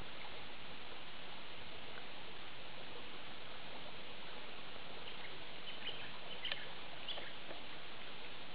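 Steady hiss of outdoor background noise, with a few faint short clicks about two-thirds of the way through.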